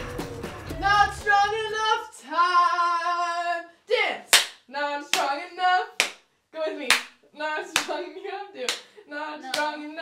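Music with a bass line fades out in the first two seconds as a young woman's voice begins singing without words. She holds one long note, then sings short notes between sharp hand claps about once a second.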